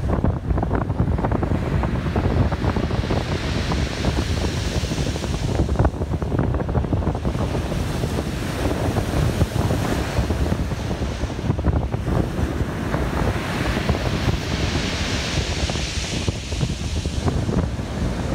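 Wind buffeting the microphone over the sea, with the wash of waves swelling twice.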